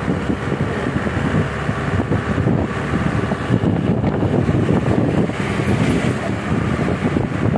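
Car engine and road noise heard from inside the cabin, a steady rumble as the car climbs a mountain road.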